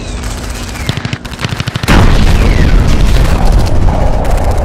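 Rapid gunfire, then a loud explosion about two seconds in; its low rumble carries on under continuing shots.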